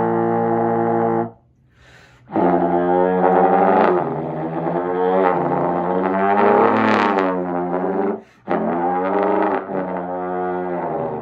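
Trombone played while the player sings into it at the same time, giving a buzzing two-pitch chord. A held chord stops about a second in; after a short break come long swooping slides up and down in pitch, an imitation of a race car, broken once more briefly near the end.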